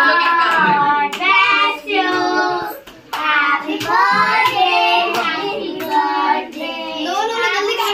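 Children singing together, with hands clapping.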